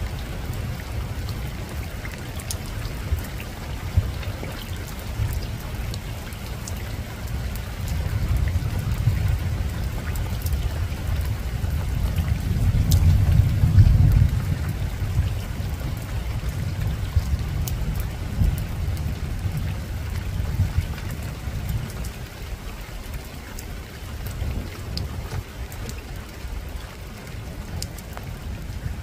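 Steady rain falling on a rooftop, with scattered drop ticks. Under it a low rumble of distant thunder swells from about eight seconds in, peaks around halfway, then eases off.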